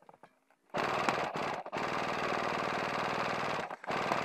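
Airsoft RPK firing full-auto in several rapid bursts after a short quiet start. The longest burst runs about two seconds, and a short one comes near the end.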